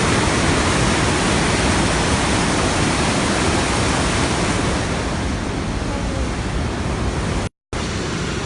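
Rhine Falls, a large waterfall in full flow, heard as a loud, steady rush of water; the sound cuts out completely for a split second near the end.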